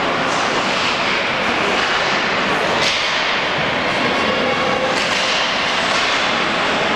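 Ice hockey game sounds in a rink: a steady noisy din of play with three sharp cracks, about two seconds apart.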